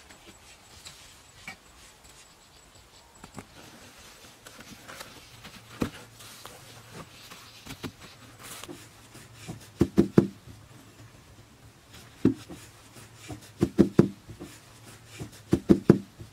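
Dull thumps and knocks of hand work. Faint rustling and light ticks at first; from about ten seconds in come groups of two to four loud, dull thuds, with a last cluster near the end.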